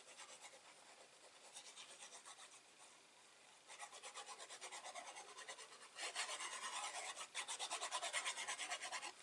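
Glued cardstock panel being burnished: fast, even back-and-forth rubbing strokes across the paper, growing louder about four seconds in and again about six seconds in.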